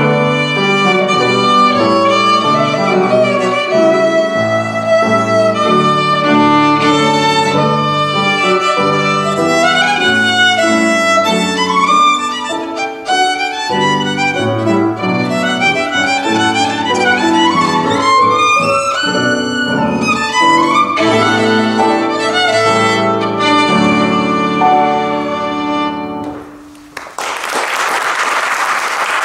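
Violin played with piano accompaniment, a melodic line that comes to its end about three seconds before the close. Audience applause follows at once.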